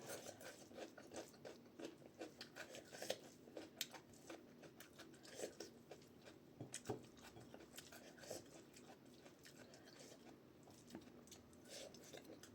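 Faint chewing and mouth sounds with small irregular clicks from a person eating rice and dal by hand.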